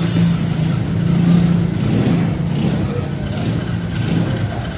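Yamaha Jupiter MX motorcycle's single-cylinder four-stroke engine running steadily, swelling briefly about a second in, after being started on its repaired electric starter.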